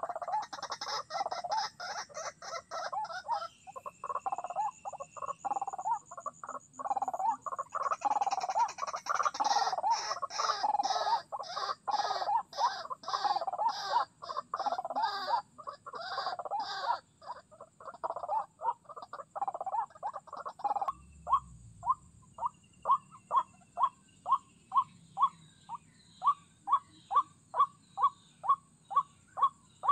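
White-breasted waterhens calling. A fast, dense run of harsh croaking 'kruak' notes gives way, about two-thirds of the way in, to a steady series of single croaks at roughly three every two seconds.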